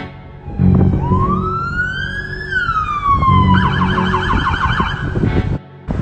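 Emergency vehicle siren: one slow rising and falling wail, then a fast yelp warble for about a second and a half, over a steady low hum. It cuts off abruptly shortly before the end.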